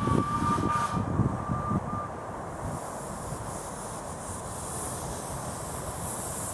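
Miniature steam locomotive's whistle sounding for about two seconds, over uneven low chuffs. It is followed by a steady hiss.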